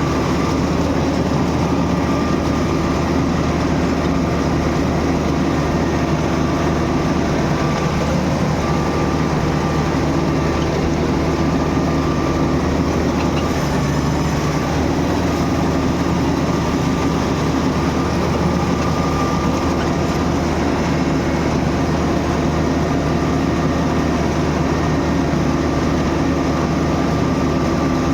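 Gam combine harvester running steadily: an even engine-and-machinery drone with a few held tones and no change in speed.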